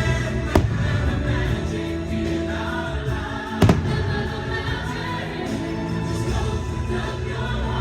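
Choir singing over the fireworks show's holiday music, with two sharp firework bangs, one about half a second in and one about three and a half seconds in.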